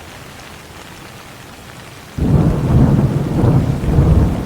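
Steady rain hiss, then about two seconds in a sudden loud peal of thunder breaks in and keeps rolling.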